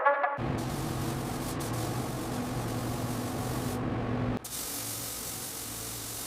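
Air spray gun hissing steadily, with a low hum beneath. About four seconds in it cuts abruptly to a quieter hiss that carries on.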